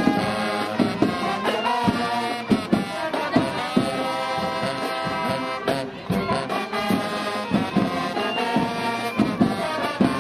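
Marching band playing: brass horns holding sustained chords over regular drum strikes.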